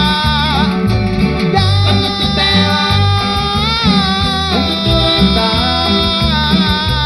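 Grupera cumbia band playing an instrumental stretch of the song: a steady bass and drum beat under a sustained lead melody that slides between notes.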